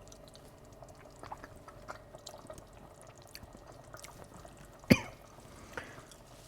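Curry simmering in a pot, faint bubbling with small scattered pops, and one sharp clack a little before five seconds in.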